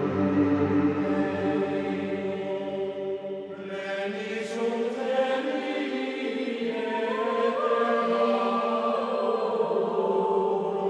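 Background music of slow choral chanting in long held notes, shifting pitch a few times.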